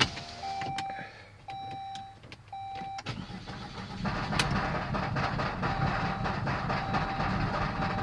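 Saab 9-3 restarted from cold: the dashboard chime beeps three times about a second apart, then the engine cranks and fires about three seconds in and runs unevenly. This is the hard, rough cold start it has every morning, just after a stall.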